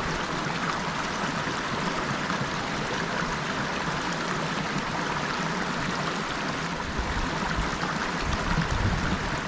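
Steady rushing of creek water and a small waterfall pouring into a pool, with some low rumbling near the end.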